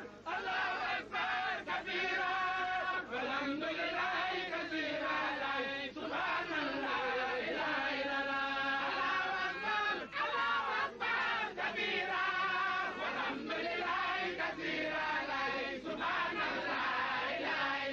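Men's voices chanting together in a devotional chant, in long sung phrases with short breaks between them.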